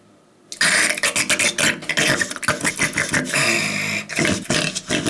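A man making vocal mouth noises, a rapid string of clicks, pops and hisses like beatboxing, starting about half a second in, with a longer hiss in the middle.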